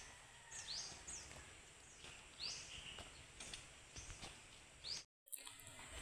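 A few short, high bird chirps, spaced a second or two apart, over faint outdoor background noise. The sound drops out completely for a moment near the end.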